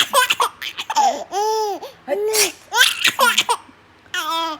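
A baby laughing in a series of high-pitched peals, about five short bursts with brief pauses between them.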